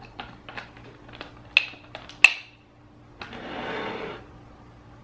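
Small clicks of a plastic screw cap being twisted shut on a coconut water carton, then two sharp knocks as the carton is set down on the table, about a second and a half and two seconds in. About a second of scraping follows, as the bowl is moved on the table.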